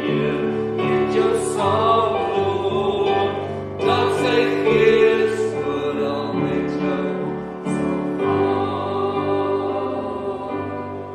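Congregation singing a hymn with pipe-organ accompaniment, held notes moving from chord to chord, which cuts off abruptly at the very end.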